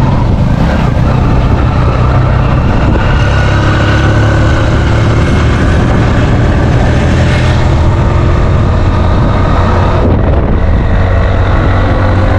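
Motor vehicle engine running steadily with loud, continuous road noise.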